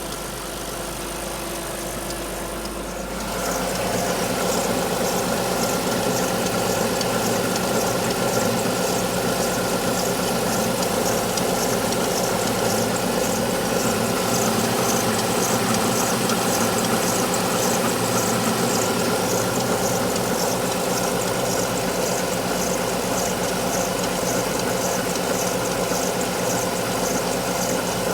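Alfa Romeo 156's Busso V6 idling from a cold start. It gets louder about three seconds in, and from then on a fast, high-pitched repeating chatter rides over the engine: one of two abnormal noises that the engine makes when cold.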